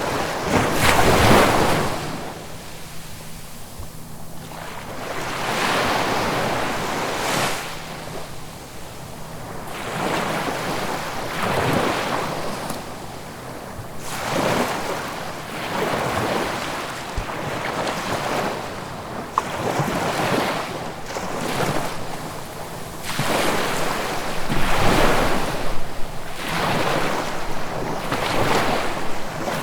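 Ocean waves breaking and washing up a shore, the surf swelling and falling back every few seconds, with the loudest breaks about a second in and again near the end.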